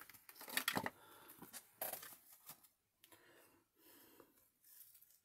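Faint desk-handling sounds: a few light taps and paper rustles as crafting supplies, a clear acrylic stamp block and torn paper scraps, are moved about on a work surface. The loudest taps come within the first second.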